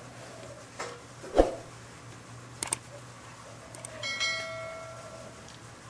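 Eating by hand off a steel plate: a few sharp clicks and one loud knock about a second and a half in. About four seconds in a brief ringing tone sounds and fades.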